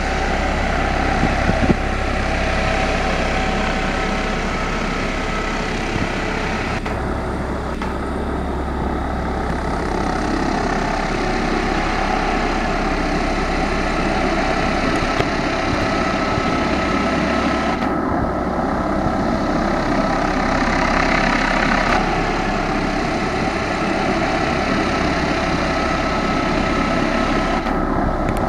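Airbus H145 D3 helicopter hovering and climbing away. Its twin turboshaft engines give a steady whine, mixed with the noise of the five-blade main rotor and the shrouded Fenestron tail rotor.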